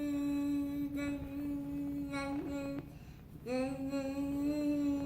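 A young child humming one long steady note, stopping for a breath about three seconds in and then taking up the same note again.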